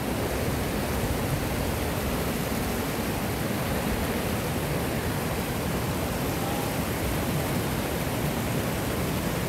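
Steady rushing of a small mountain river.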